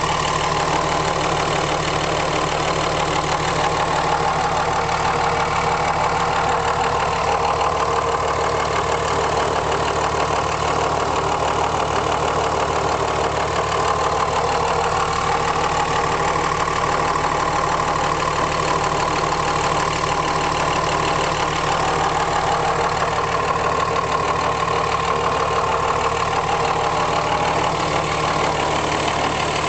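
The Cummins 5.9 L turbo-diesel of a 2005 Dodge pickup idling steadily. The owner is unsure whether a noise he hears around the intake and near the rear of the oil pan is normal.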